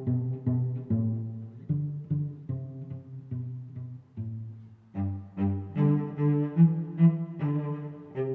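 Background music on low strings, a cello-like line, playing a steady run of short notes; it grows fuller and louder about five seconds in.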